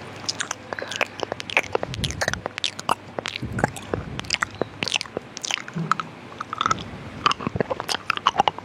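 Close-miked ASMR mouth sounds: a dense, irregular run of wet clicks and smacks from the lips and tongue, several a second, close to the sound of chewing.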